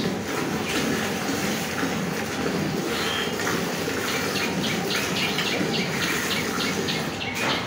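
A cow being milked by hand: rhythmic squirts of milk hissing into a bucket that already holds frothy milk. The strokes come about three a second and are clearest in the second half.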